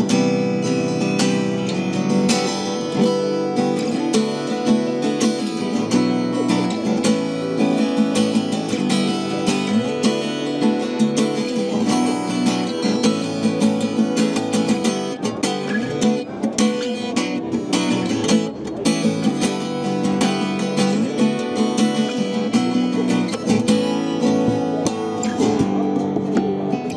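Fonzo steel-string acoustic guitar played fingerstyle: a melody over bass notes, with strummed chords and sharp hits on the strings throughout.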